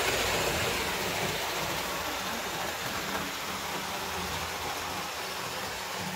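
Tri-ang R250 model diesel locomotive running on its track, its motor whirring steadily while the wheels of the locomotive and three coaches roll over the rails. It is loudest at the start as the coaches pass close by, and a little quieter as the train moves away.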